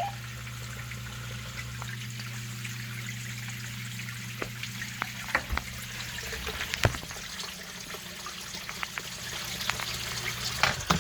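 Water trickling and splashing, a steady hiss of running water with scattered small drips and clicks, over a steady low hum that stops near the end.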